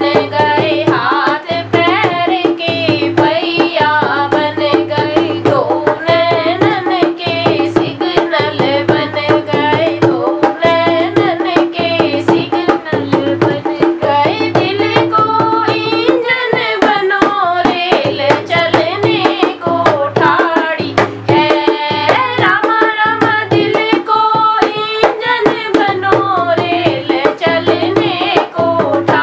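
Dholak, a two-headed rope-tensioned barrel drum, played by hand in a steady repeating rhythm, accompanying a female voice singing a Hindi devotional bhajan.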